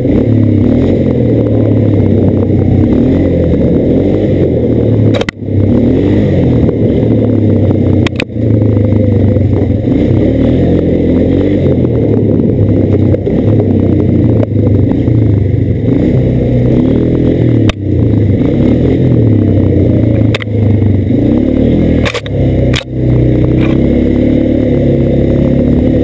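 Quad (ATV) engine running under way, loud and close, its pitch rising and falling as the throttle opens and closes. It is broken a few times by brief dips and sharp knocks.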